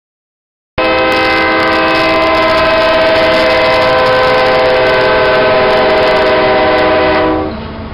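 CSX diesel locomotive's air horn sounding one long blast, a chord of several notes, lasting about six and a half seconds. It starts suddenly and cuts off near the end, leaving the quieter rumble of the passing train.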